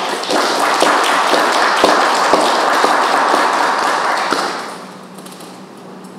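Audience clapping after a poem, many hands together, dying away about five seconds in.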